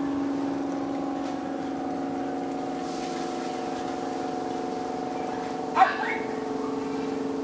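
A vessel's engine drones steadily with a few held tones. A dog barks once about six seconds in.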